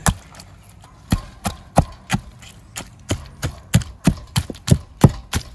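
A knife chopping a dressed rooster into pieces on a leaf-covered wooden board: a run of sharp knocks, about three a second, as the blade cuts through bone and strikes the wood.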